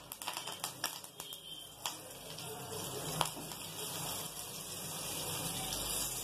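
Mustard seeds, dal and curry leaves crackling and popping in hot oil in a small kadai during tempering. A quick cluster of sharp pops comes in the first two seconds, one more loud pop follows a little later, over a steady hiss.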